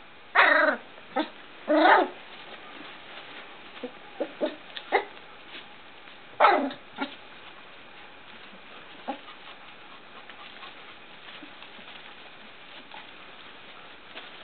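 Three-week-old puppies yipping and yelping: three loud, high yelps that slide down in pitch, about half a second in, near two seconds and about six and a half seconds in, with shorter yips between them, then only faint background for the last few seconds.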